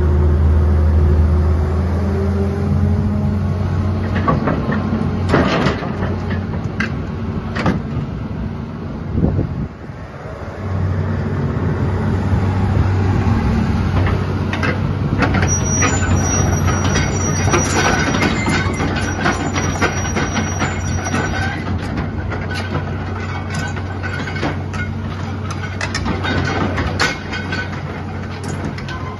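Hitachi EX200 hydraulic excavator's diesel engine running steadily as the machine slews and turns, with repeated metallic clanks and squeals from its steel tracks and undercarriage. The engine hum drops away briefly about ten seconds in, then comes back.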